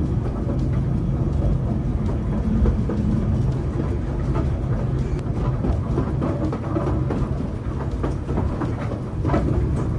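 Kurobe Gorge Railway narrow-gauge sightseeing train running along the track: a steady rumble of wheels on rails, with a few brief clicks over it.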